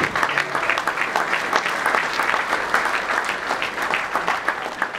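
Audience applauding, a dense patter of many hands clapping, slowly dying away near the end.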